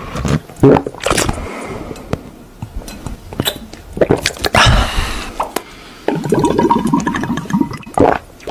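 A person drinking straight from a glass bottle in gulps, with wet slurping and swallowing sounds. The loudest, longest slurp comes about halfway through.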